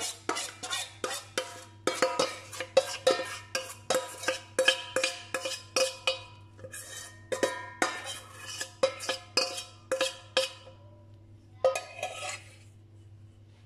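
Metal spoon knocking and scraping against a stainless steel mixing bowl, about three quick ringing strikes a second, as a thick batter is scraped out. The strikes stop about ten seconds in, with one last short burst near the end.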